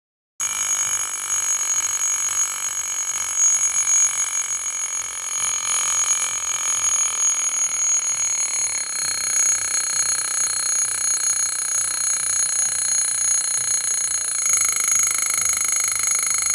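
Homemade electric bell: a battery-driven DC motor rapidly beating a steel bowl, which rings continuously with a fast rattling beat. It switches on abruptly about half a second in, and its ringing tone shifts slightly about nine seconds in and again near the end.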